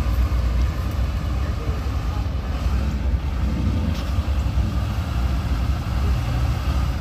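Lifted mud truck's engine running steadily with a heavy low rumble as the truck wades slowly through deep muddy water on tractor tires.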